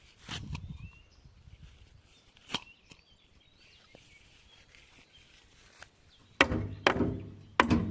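Heavy blows on wood as a wooden structure is knocked apart: a couple of lighter knocks in the first few seconds, then four hard blows close together near the end, each leaving a brief ring.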